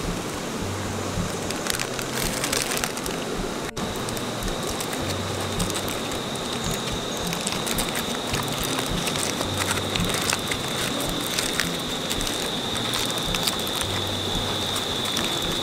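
Steady rush of river water with scattered crackles from the cooking fire, under quiet background music with a low bass line. A thin, high, steady whine joins about four seconds in.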